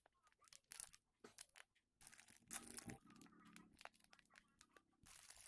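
Faint, intermittent crinkling and rustling of thin plastic packaging as squishy toys are handled, with scattered short crackles.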